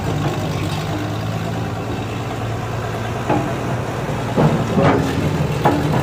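Old road roller's diesel engine running steadily at a low pitch. A few short, louder pitched sounds come over it about three seconds in and again between four and a half and five seconds.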